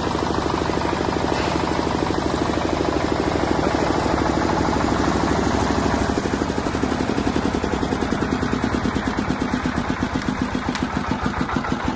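Diesel engine of a 7.5 kVA Bajaj generator set running with a fast, even knocking beat; about halfway through the beat becomes slower and more distinct.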